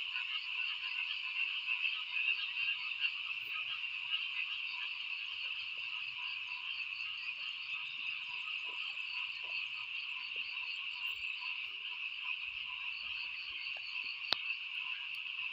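Dense, steady night chorus of frogs and insects, a continuous high pulsing din. A single sharp click near the end.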